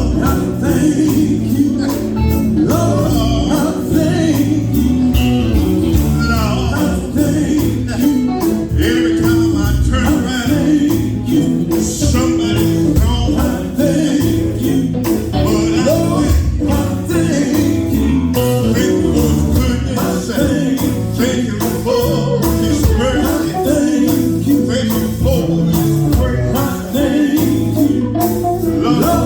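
Live gospel music: a band playing a steady, driving song with singing over it.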